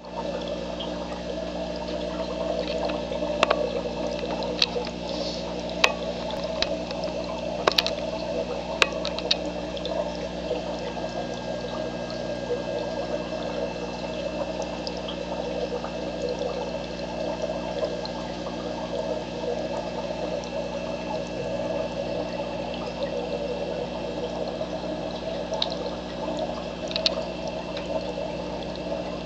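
Aquarium filter running: steady pouring, trickling water over a low, even hum, with a few sharp clicks in the first ten seconds.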